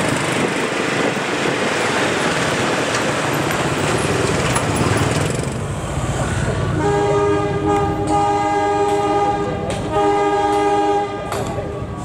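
For the first six seconds a steady rushing noise of wind and road travel. Then, about seven seconds in, a CC201 diesel locomotive's horn sounds two long blasts of several tones together, the second shorter.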